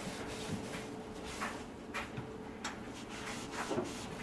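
Hand-scrubbing stubborn grease and cooking stains on a toaster oven: a series of short, scratchy rubbing strokes, irregular, about one every half second to a second.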